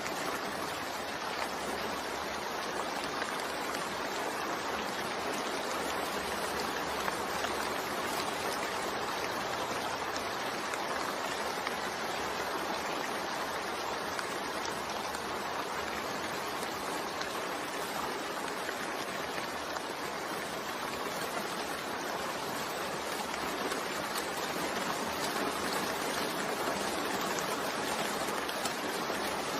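Steady recorded rain, an even, continuous hiss of falling rain with no breaks or changes.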